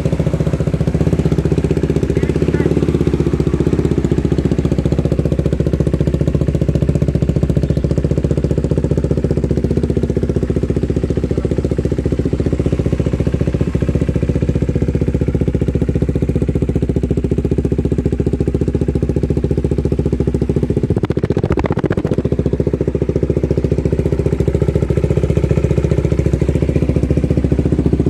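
KTM Duke 390's single-cylinder engine idling steadily through a decatted custom stainless mid pipe and the stock muffler with its dB killer removed.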